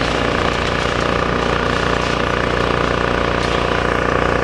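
Diesel engine of a demolition excavator running steadily, a continuous even drone.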